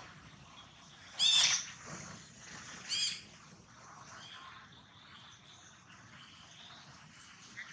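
Baby macaque giving two short, high-pitched cries, the first about a second in and a shorter one about three seconds in.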